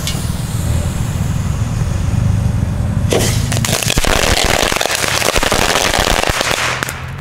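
Two small firecrackers going off, one in a steel pot and one in a frying pan: a bang about three seconds in, then several seconds of dense crackling that cuts off shortly before the end.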